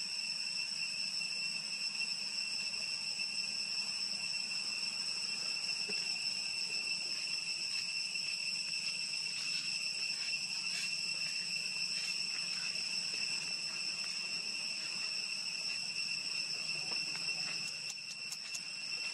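Steady, high-pitched insect drone in the forest: two even tones held without a break, with a few faint clicks.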